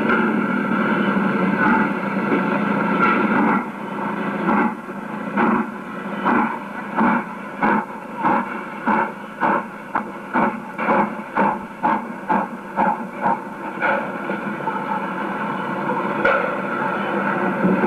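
Saddle-tank steam locomotive hauling a passenger train, its exhaust beats coming evenly at about one and a half a second through the middle of the stretch, over a steady hiss.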